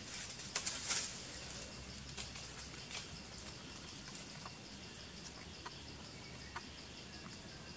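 Steady high-pitched insect chorus with a fast, even pulsing buzz, and a few sharp crackles in the first second.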